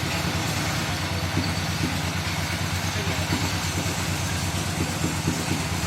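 A motor running steadily with an even, low, rapid throb, like an engine at idle.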